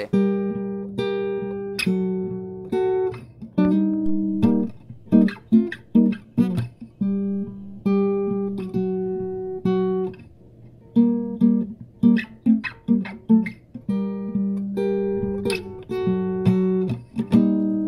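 Acoustic guitar playing, a run of picked notes and strummed chords, with a brief lull about ten seconds in.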